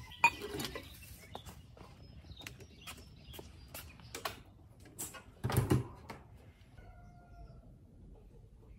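Handling knocks as an old cassette deck is lifted from a pile of scrap, then scattered footsteps on concrete, with a heavier thud about five and a half seconds in.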